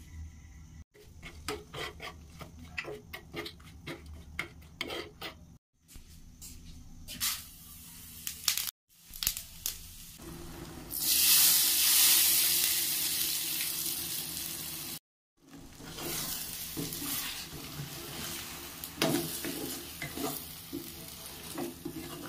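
Tadka of cumin seeds and dried red chillies crackling and spitting in hot oil in a pan. About eleven seconds in, a loud sizzle starts suddenly and fades over a few seconds as the hot tempering is poured onto spinach curry. After that, a spoon stirs and scrapes in a steel bowl with light clinks.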